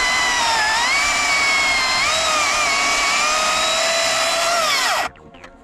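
Makita MUC019GZ 40V cordless brushless chainsaw cutting through persimmon wood: a steady high electric whine whose pitch dips under load and recovers, the chain running through the cut without stalling. About five seconds in the pitch falls and the motor stops as the trigger is let go at the end of the cut.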